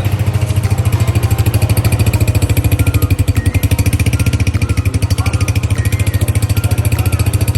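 Honda 125 motorcycle's single-cylinder four-stroke engine idling steadily, with an even, rapid exhaust beat.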